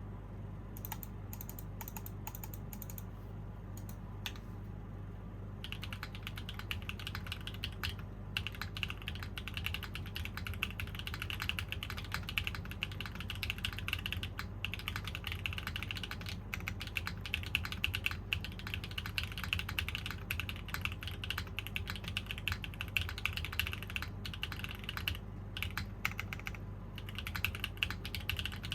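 Typing on a KBDfans KBD8X MKIII gasket-mount mechanical keyboard with an aluminum plate, Sarokeys Strawberry Wine switches and GMK keycaps. A few scattered keystrokes at first, then fast continuous typing from about six seconds in, broken by a few brief pauses.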